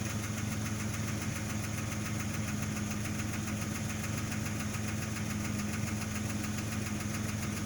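2003 Jeep Grand Cherokee (WJ) 4.0-litre inline-six idling, with a steady light tick over the idle. The owner hears this tick mostly on a cold engine and cannot tell whether it is a valvetrain tick or piston slap.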